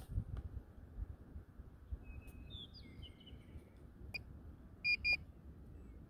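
Wind rumbling on the microphone, with a few quick gliding chirps about two seconds in. About five seconds in come two short, identical beeps in quick succession, the loudest sounds here.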